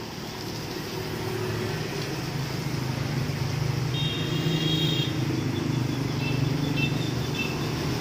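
Tour bus diesel engine idling with a steady low hum that grows louder over the first few seconds, over an even hiss of rain on wet pavement. A few brief high tones sound about halfway through.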